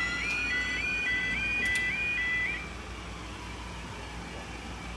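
UK level crossing audible warning: a two-tone yelping alarm repeating about three times a second, then stopping suddenly about two and a half seconds in as the crossing reopens with its barriers raised.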